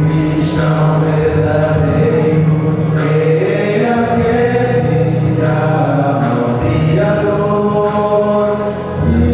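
Male vocal quartet singing a sacred song in harmony into handheld microphones: long held chords over a low bass part, with new phrases starting every two to three seconds.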